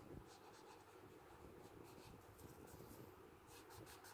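Faint scratching of a paper blending stump rubbed in short repeated strokes on textured 100-lb drawing paper, smudging graphite shading.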